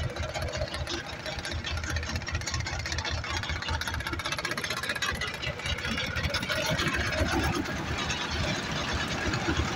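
An engine running steadily with a fast, even rattle and a low rumble.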